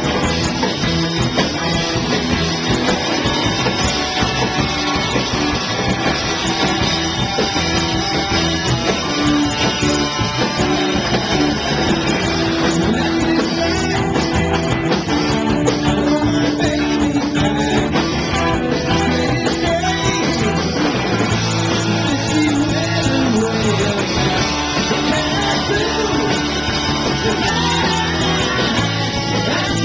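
Live rock band playing: electric guitars, bass, drums and saxophone, with a man singing.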